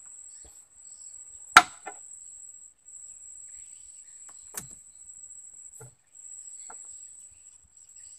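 Insects trilling steadily at a high pitch, with brief gaps. A single sharp knock about one and a half seconds in stands out above it, and a fainter knock follows about three seconds later.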